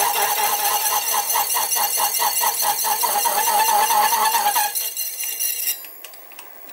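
Slitting saw on a mini mill cutting into a brass connecting rod at about 275 RPM, a rhythmic pulsing screech about five times a second. It stops about five and a half seconds in.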